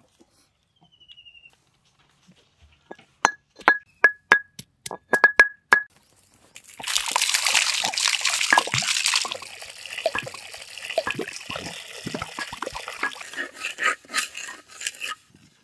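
A coconut struck about a dozen times with a metal blade to crack it open, each strike giving a short ring; then liquid pours and splashes for about two seconds, followed by softer irregular trickling and dripping.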